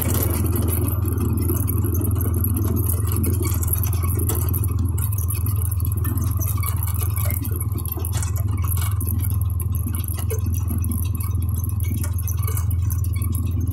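ATV engine running at a steady pitch, with scattered knocks and rattles from the machine jolting over the trail.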